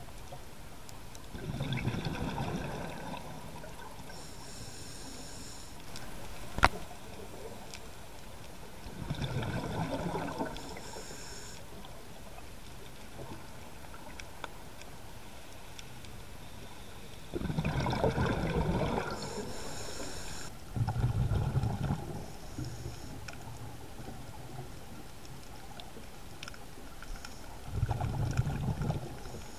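Scuba diver breathing through a regulator underwater: four bursts of exhaled bubbles gurgling out, roughly eight seconds apart, with fainter hissing between them. A single sharp click about six and a half seconds in.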